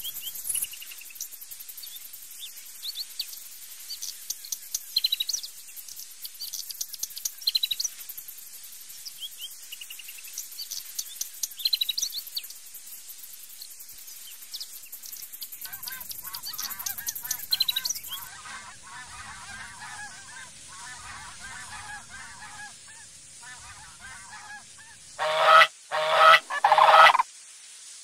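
Repeated high chirping of small birds over a high insect hiss, then about 25 seconds in three loud honking calls from large birds in quick succession.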